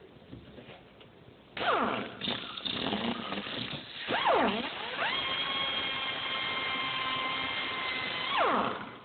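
High-speed rotary cutting tool grinding through a steel handcuff. Its whine starts about a second and a half in, sags in pitch as it bites and recovers, holds a steady high pitch, then winds down near the end.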